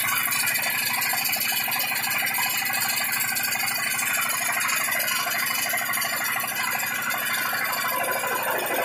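Tongfeng single-cylinder diesel engine running steadily, driving a 20 kW generator on a home-built genset.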